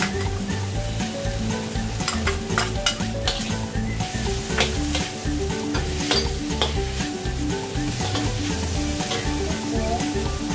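Minced beef and diced vegetables sizzling in a hot wok while being stir-fried, with a metal spatula scraping and clicking against the pan several times.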